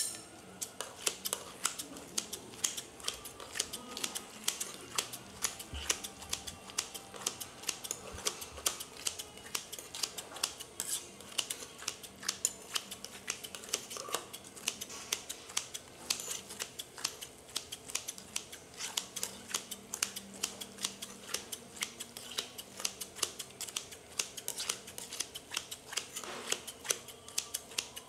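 Metal spatulas chopping and tapping against a teppanyaki griddle, several sharp irregular clicks a second in a steady clatter.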